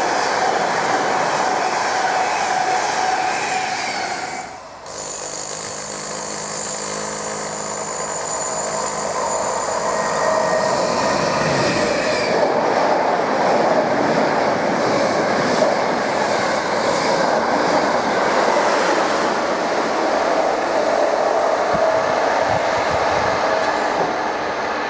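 Locomotive-hauled passenger train of Mark 3 coaches behind a Class 90 electric locomotive passing at speed, with a continuous rumble and clatter of wheels on rail. The noise dips sharply for a moment about five seconds in, then carries on with a faint steady whine over the rolling noise.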